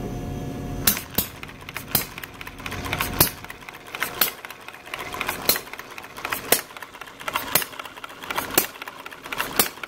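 A homemade miniature four-stroke hit-and-miss engine starting and running. After a steady hum for the first second, it fires with a sharp bang about once a second and coasts between firings, with light mechanical clicking in between.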